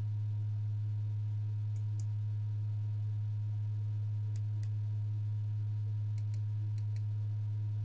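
A steady low hum, with a few faint short clicks, mostly in pairs, from the projector remote's buttons as the settings menu is navigated.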